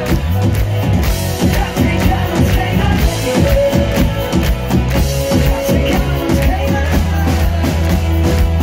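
Live band playing a rock song, with a drum kit keeping a steady beat over sustained low notes.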